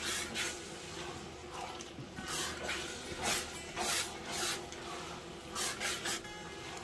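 Pot of thick palm-oil stew simmering, with irregular short spluttering hisses as it bubbles, roughly one every half second to second.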